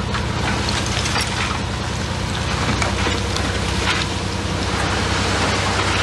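Komatsu bulldozer's diesel engine running steadily under a constant crackling hiss with scattered clicks, as it works through trash.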